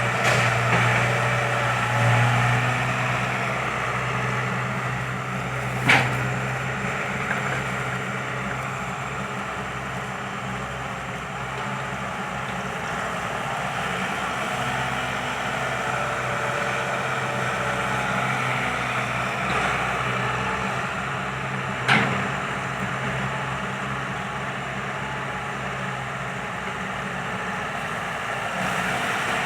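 Kobelco SK120 Mark III excavator's diesel engine running steadily at work, with two sharp knocks about six seconds in and again some sixteen seconds later.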